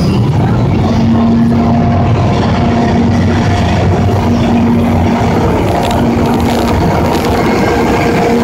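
EF64 electric locomotive hauling its train out of the platform: a continuous low rolling rumble as the locomotive and carriages move past, with a steady hum over it from about a second in.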